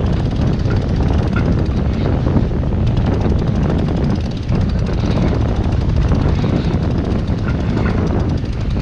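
Wind buffeting the microphone aboard a sailboat under way in a fresh breeze: a steady, loud low rumble.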